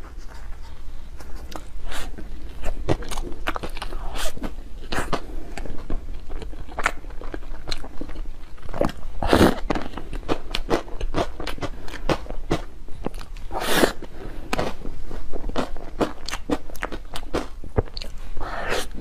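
Close-miked biting and chewing of soft chilled filled buns (ice bread): many small mouth clicks and noisy chewing strokes, with two louder bursts about nine and fourteen seconds in.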